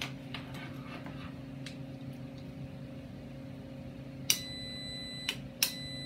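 Riding-mower starter solenoid clicking several times as it is switched on and off from a small battery, a sign that it is working. A faint high steady tone sounds between the clicks, over a low steady hum.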